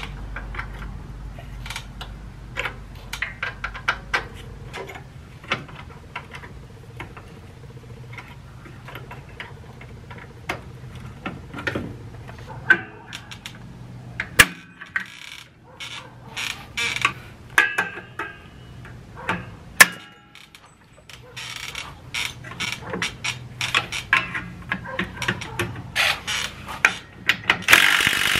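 Irregular metallic clicks and clinks from hand tools, with pliers working the springs and hardware of a drum brake. Near the end a Ridgid cordless drill-driver starts up and runs steadily.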